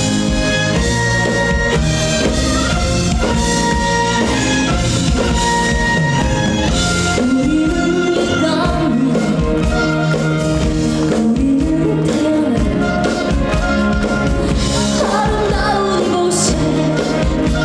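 A woman singing a song live over instrumental accompaniment.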